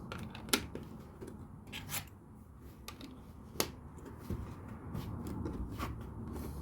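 LEGO bricks being handled and pressed together: a few sharp plastic clicks spaced a second or two apart, with light rustling of pieces between them.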